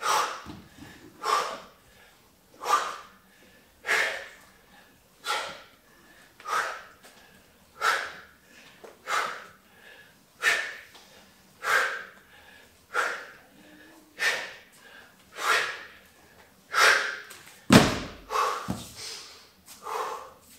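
A man's sharp, forceful exhalations, one with each rep of a Bulgarian bag exercise, about one every 1.3 seconds. Near the end a loud thud as the sandbag is dropped onto the mat floor.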